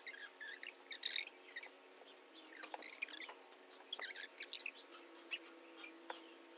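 Small birds chirping and twittering on and off, faint, with a few sharp clicks among them.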